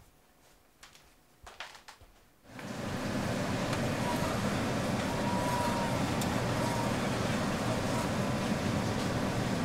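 A few faint clicks and rustles, then about two and a half seconds in a steady, loud wash of outdoor city noise starts abruptly and holds evenly.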